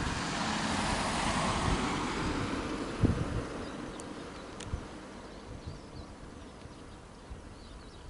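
A car passing on the road: its tyre and engine noise swells over the first second or so, then fades away. There is a sharp bump about three seconds in, and low wind rumble on the microphone throughout.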